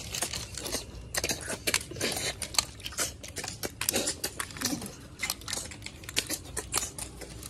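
Cooked snail shells clicking and clattering against steel bowls and against each other as they are picked up, sucked out and dropped, in quick, irregular clicks.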